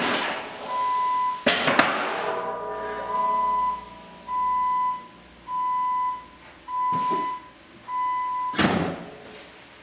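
Metal clanks from a Western Defender snowplow blade as it is lowered and angled, one ringing on briefly, the loudest near the end. Under them a warning chime beeps at one steady pitch, about once a second.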